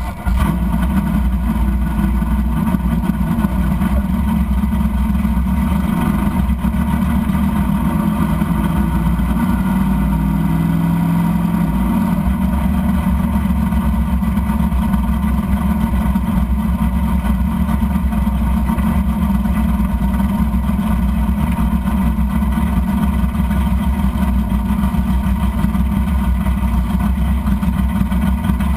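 Drag race car's V8 engine catching at the start, then idling and running at low speed, heard from inside the cabin, with a brief rise in pitch about ten seconds in as the car moves off.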